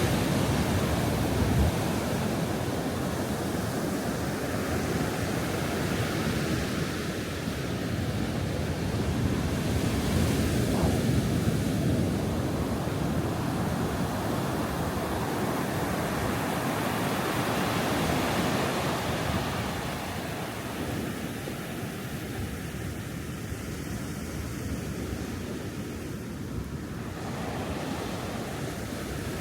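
Ocean surf: waves breaking and washing up a beach in a continuous rush that swells midway and eases off somewhat in the last third.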